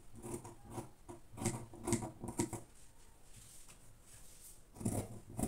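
Scissors snipping through a strip of stiff collar interfacing (collar gum): a run of quick cuts over the first two and a half seconds, then a few more near the end.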